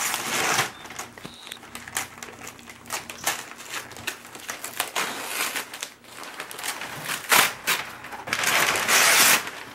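Christmas wrapping paper rustling and crinkling as a large flat gift is unwrapped, the paper pulled away in bursts, loudest near the end.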